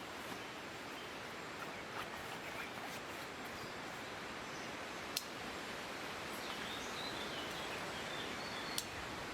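Strong wind rushing steadily through forest trees, with a few faint twig clicks and a short bird call about seven seconds in.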